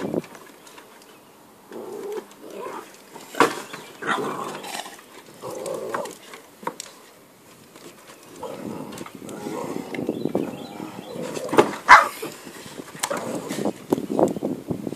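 A Great Dane and a small terrier play-fighting: on-and-off growling and grumbling in play, broken by a few short, sharp yaps, the loudest about twelve seconds in.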